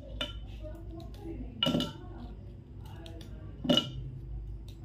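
Oreo biscuits being broken by hand and the pieces dropped into a plastic grinder jar: two sharp clinks about two seconds apart, with fainter clicks and crackling between.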